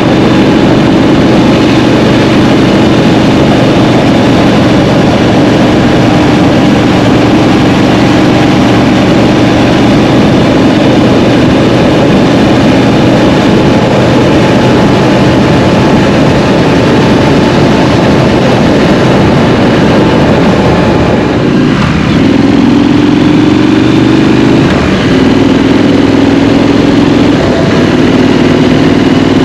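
Scrambler motorcycle engine running at a steady cruise over a constant rush of wind and road noise. About 21 seconds in the revs drop briefly, then climb again in steps as the bike accelerates through the gears.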